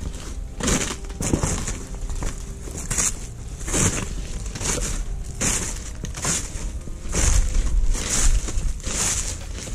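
Footsteps crunching through dry leaves and brittle undergrowth, about one step a second, with twigs snapping and brushing underfoot. A low rumble on the microphone near the end.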